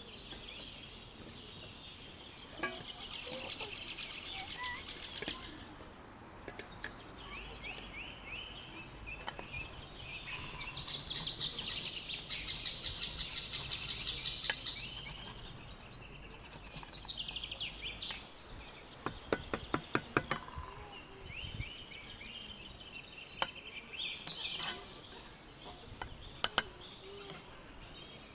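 Birds chirping outdoors in bouts of rapid trills lasting a few seconds each, with scattered sharp clicks.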